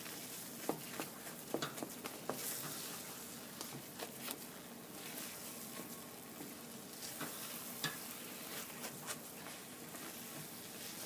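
Semolina halwa cooking in ghee in a kadhai: a soft, steady sizzle with scattered clicks and scrapes of stirring against the pan. The ghee is starting to separate, the sign that the halwa is done.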